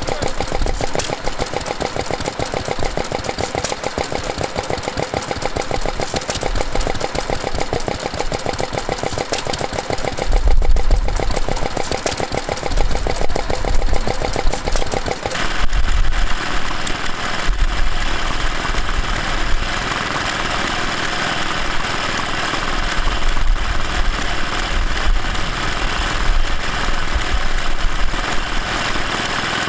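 A small BSA single-cylinder stationary engine runs steadily with a fast, even firing beat. About halfway through the sound changes to a J.A.P. single-cylinder stationary engine running while it drives a grinding mill by belt.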